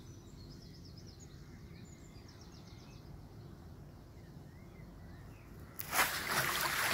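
Birds singing with scattered chirps and trills over a low steady rumble. Near the end a loud rustling rush cuts in.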